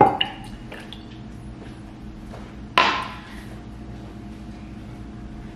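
Glassware and a steel cocktail shaker knocking on a kitchen counter during cocktail mixing: a short knock at the start and a sharper clink with a brief ring about three seconds in, over a faint steady appliance hum.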